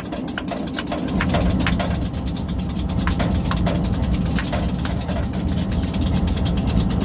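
Diesel-electric locomotive engine idling close by, a steady low rumble that grows louder about a second in, with a quick, even ticking over it.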